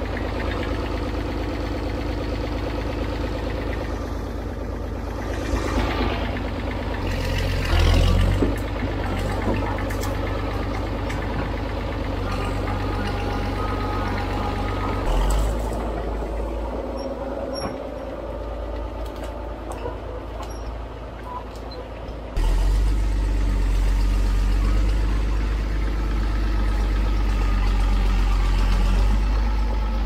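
International TD9 crawler bulldozer's diesel engine running steadily under load as the machine pushes through dense brush, with a few bursts of crackling and snapping branches. The engine sound turns suddenly louder and deeper about two-thirds of the way through.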